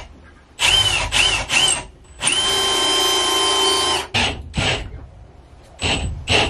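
Cordless drill driving screws into 2x4 lumber. It starts with three short trigger bursts that rise and fall in pitch, then runs steadily for about two seconds as a screw sinks, and ends with a few more short bursts.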